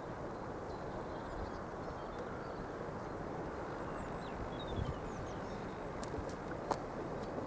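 Steady outdoor rushing background noise with scattered short, high bird chirps, and a sharp click or two near the end.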